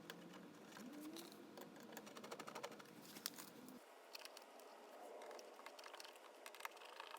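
Near silence: quiet room tone with faint, scattered light clicks.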